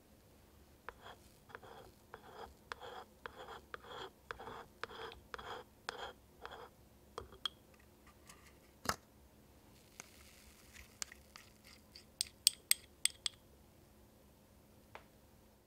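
A tiny wooden spatula stirs cake batter in a small ceramic bowl, with soft strokes about two to three a second. Then comes a single sharp knock and, a few seconds later, a quick run of sharp clicks, the loudest sounds, as the batter is worked out into a paper baking cup.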